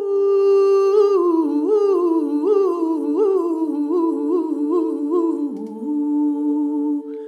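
Women's voices singing wordlessly a cappella: two notes held steady as a drone while another voice sings a string of short rising-and-falling figures, then glides down to a low held note about two-thirds of the way through.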